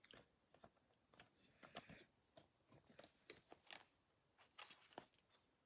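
Faint, scattered rustles and light clicks of trading cards being handled.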